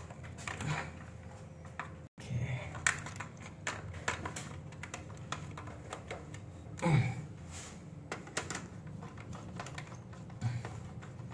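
Scattered light clicks and taps of hand work on a Schneider consumer unit as it is wired, coming irregularly.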